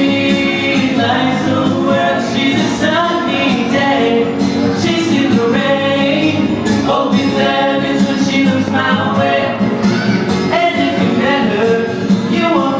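A song being performed with singing voices, continuous throughout.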